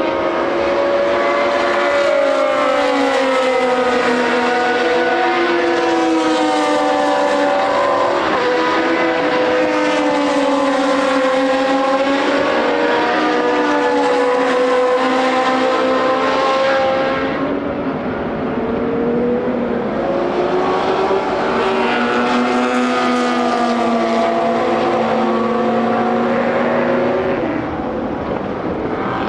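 Historic racing cars at racing speed passing one after another, their engine notes rising and falling as they change gear and go by. There is a short lull about two-thirds of the way in, then another car comes through.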